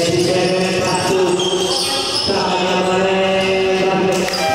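Basketball game in play: a ball bouncing on the court under held, steady pitched tones whose notes change about halfway through.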